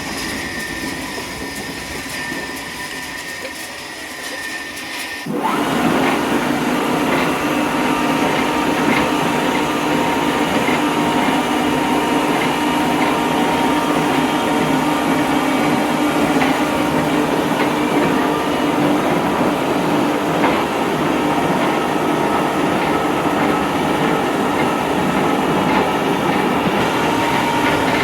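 Chainsaw running at a lower, steadier pitch, then throttled up sharply about five seconds in and held at full speed to fell a large tree.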